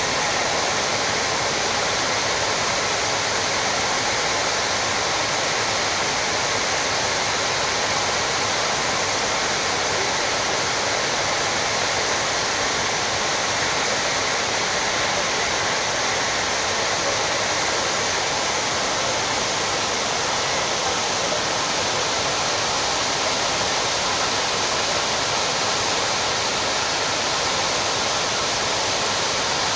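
Steady rush of water cascading down the granite walls of a 9/11 Memorial reflecting pool into the basin.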